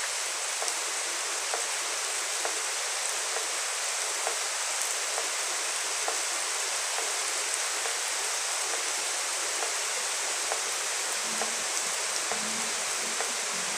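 Steady rain falling, an even hiss with scattered small ticks of drops through it. A low steady tone comes in near the end.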